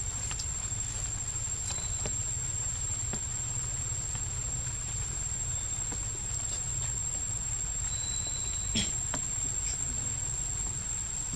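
Forest ambience: a steady high-pitched insect drone over a low rumble, with scattered faint ticks and one sharper click near the end.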